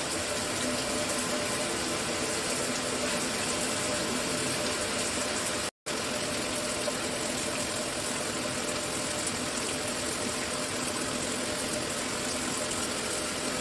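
Mira electric shower running, a steady spray of water with a faint steady hum underneath, cut to silence for a split second about six seconds in. The water is still flowing: the failing solenoid valve has not yet made it cut out.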